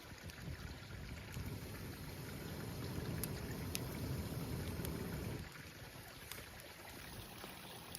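Mountain stream rushing steadily, with a heavy low rumble that drops back about five and a half seconds in, and a few faint ticks over it.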